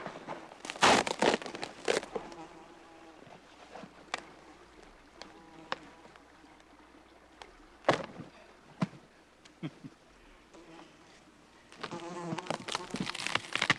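A flying insect buzzing on and off with a wavering drone, over sharp crackles and rustles from a stiff sheet of fresh birch bark being handled. The loudest crackles come about a second in and again past the middle, and the rustling picks up near the end.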